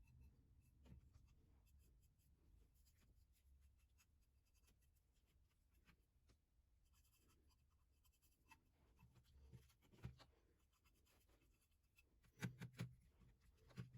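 Faint, intermittent scratching and rubbing, with a few louder knocks about twelve and a half seconds in.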